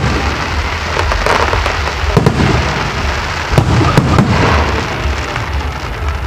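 Fireworks display: a dense run of shell bursts and crackle, with several sharper bangs standing out, over a continuous rumble.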